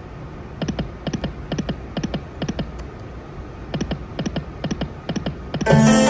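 Dragon Train video slot machine reels stopping one after another, each spin a quick run of about five clicks, repeated several times. Near the end, louder music with steady held notes cuts in.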